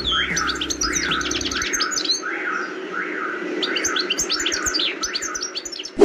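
European goldfinch singing: a fast run of high twittering chirps over a short rising-and-falling note repeated about every two-thirds of a second.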